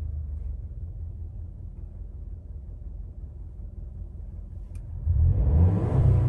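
Subaru Forester Sport's turbocharged 1.8-litre flat-four exhaust settling to a low idle rumble after a 2000 rpm hold, then revved up about five seconds in, climbing toward 4000 rpm.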